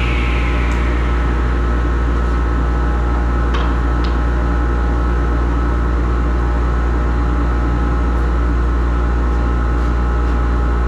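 Workshop dust collector running steadily: a loud, constant drone with a deep hum and a few steady tones. Two faint clicks come about three and a half and four seconds in.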